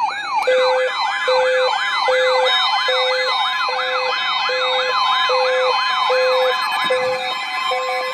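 Electronic alert siren in a fast yelp, its pitch sweeping up and down about three times a second. About half a second in, a second yelp joins it, along with a low beep repeating a little more than once a second. Near the end a steady high tone comes in.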